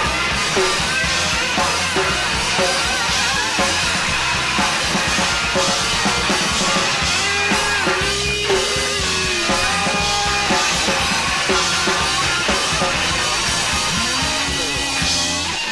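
Rock band playing live in an instrumental break, with a steady drum kit and bass under a lead line whose notes bend up and down.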